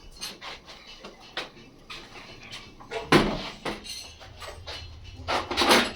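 Light clicks and knocks of small parts being handled, with two louder noisy sounds of about half a second each, one about three seconds in and one near the end.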